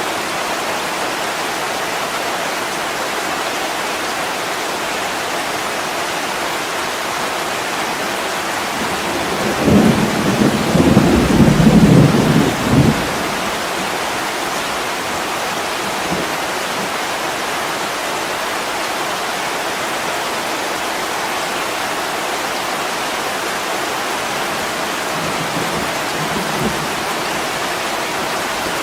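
Heavy rain falling steadily on a window. About ten seconds in, a low rumble rises over it for about three seconds, then fades back into the rain.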